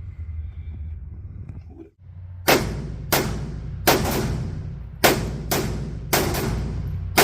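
A firearm fired in quick succession: about a dozen shots starting about two and a half seconds in, some spaced half a second or more apart and some in tight clusters, each ringing out briefly.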